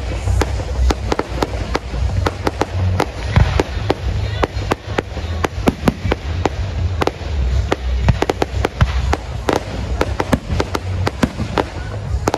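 Aerial firework shells bursting in rapid, irregular succession: many sharp bangs and crackles overlapping one another.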